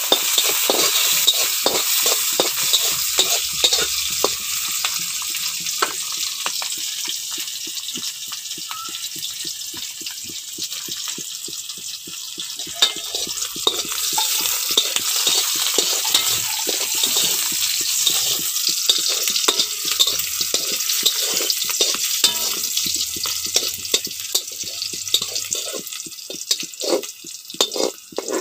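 Sliced onions sizzling in hot oil in an aluminium kadai, with a metal spatula repeatedly scraping and knocking against the pan as they are stirred. The sizzle eases a little near the end.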